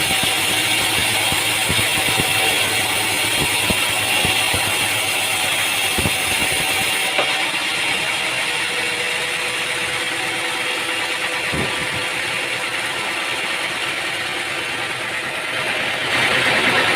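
Sawmill machinery running: a steady mechanical noise with scattered knocks in the first half. The sound changes abruptly about seven seconds in and gets louder again near the end.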